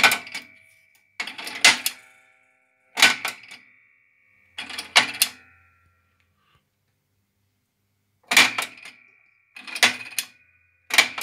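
Coin mechanism of a TUS Praha coin payphone clacking as it is worked, about seven sharp metallic clatters, each followed by a short ringing tone, with a pause of a few seconds in the middle.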